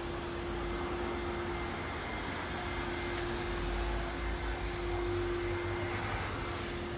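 Steady vehicle hum: one constant mid-pitched tone over a low rumble and hiss.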